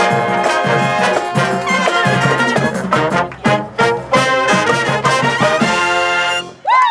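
A college marching band of saxophones, trumpets, trombones, sousaphones and drums plays a brisk tune with short, punchy accented hits a few seconds in. It ends on a held chord that cuts off just before the end.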